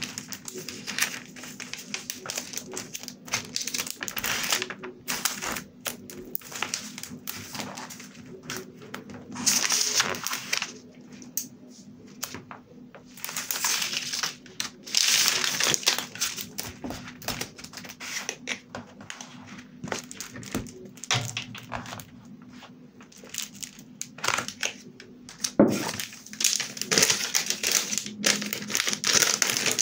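Thin translucent blue sheets and journal pages being handled, crinkling and rustling in irregular bursts as they are smoothed down, lifted and turned.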